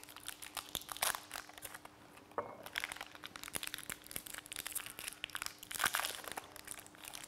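Small fudge wrappers being unwrapped by hand, rustling with a string of small crackles and clicks.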